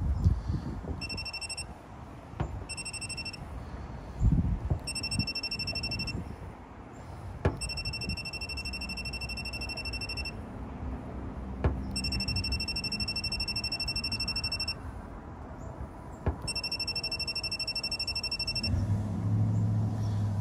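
Handheld head of a magnetic induction paintless-dent-repair heater, set at 20% power, beeping rapidly in six bursts of about half a second to two and a half seconds while its button is held to heat the dent, with a sharp click before several bursts. A low hum comes in near the end.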